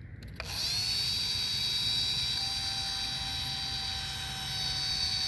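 Electric motor and propeller of an RC P-51 Mustang model spinning up about half a second in, then running with a steady high-pitched whine.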